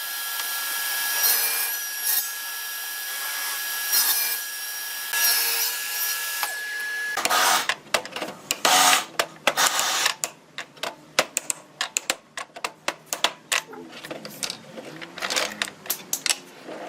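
Table saw running and cutting wood, a steady whine under the cutting noise, which swells a few times. About seven seconds in it cuts off suddenly, followed by a run of irregular sharp knocks and clicks.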